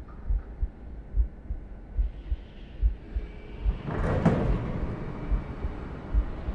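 Low, deep thuds repeating at uneven intervals, about two a second, like a slow pulse. About four seconds in, a loud rush of noise swells up and slowly fades while the thuds go on beneath it.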